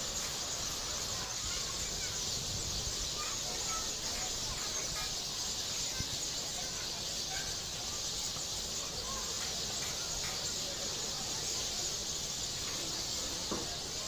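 Songbird nestlings begging at the nest: scattered faint, short squeaky calls over a steady high hiss.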